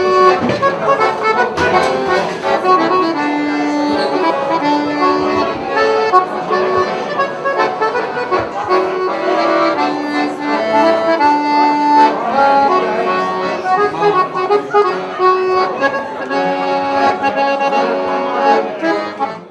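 Accordion playing a traditional tune, a melody of held notes over chords, which cuts off abruptly at the end.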